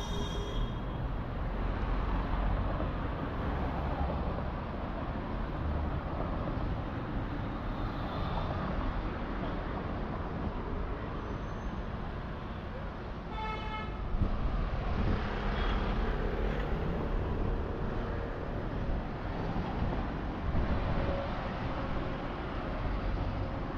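City street traffic going by, with a steady low rumble of vehicles. About thirteen seconds in, a short horn toots briefly.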